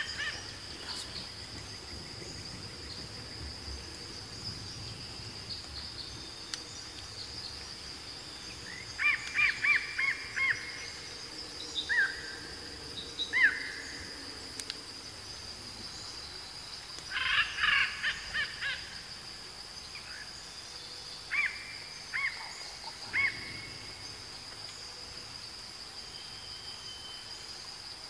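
Birds calling in short runs of quick, sharp notes, several times over, above a steady high-pitched whine.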